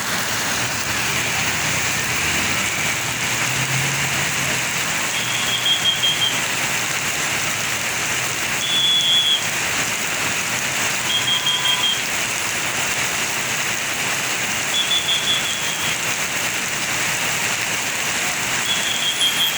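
Steady hiss of rain. Five short, high, trilling tones sound a few seconds apart.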